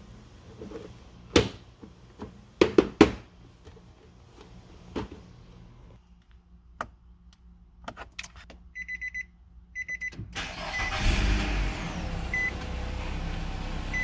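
Plastic tail-light housing of a 2017 Nissan Rogue clicking sharply several times as it is pushed home, then a run of short electronic beeps from the dashboard as the push-button ignition is pressed, which points to a weak key-fob battery. The engine then cranks, starts and settles into a steady idle.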